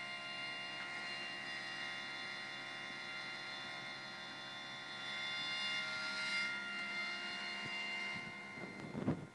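Small DC gear motors of a homemade filament extruder and puller running with a steady whine made of several fixed tones; the whine fades out about eight seconds in. A brief knock comes just before the end.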